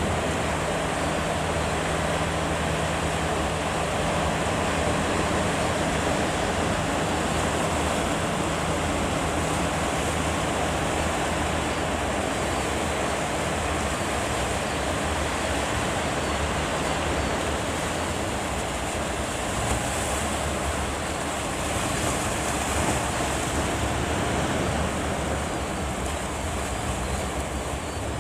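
Heavy surf at a river mouth: a continuous wash of breaking waves. A low steady hum runs under it for the first half and fades out.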